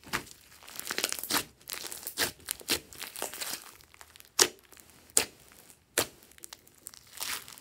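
Hands kneading and pressing glossy slime with small beads mixed in, making sticky crackling and squelching. Three sharp pops stand out in the second half.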